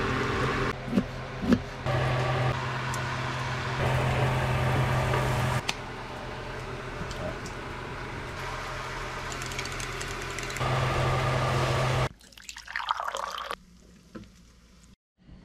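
Bacon sizzling in a frying pan, a steady hiss with a low hum beneath it and two sharp clicks about a second in. The sound shifts abruptly several times and drops away to much quieter about twelve seconds in.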